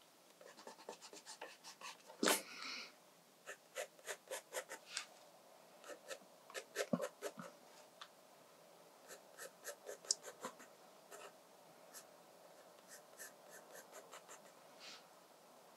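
Graphite pencil drawing on watercolour sketchbook paper: irregular short scratchy strokes as lines are sketched in, with one louder rustle about two seconds in.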